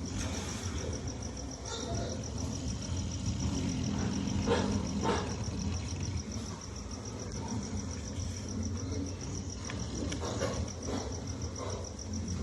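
Sleeping pig snoring, a low rumbling breath sound with a few louder rasping snores about four and a half seconds in and again near the end. A steady high-pitched chirring trill runs underneath.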